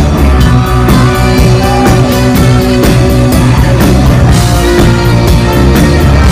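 Live rock band playing loud: a saxophone lead over electric guitar and a drum kit keeping a steady beat.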